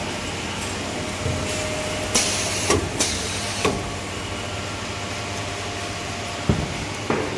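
Toilet paper roll band saw cutting machine running with a steady mechanical hum, with several sharp clunks and a short hiss about two seconds in.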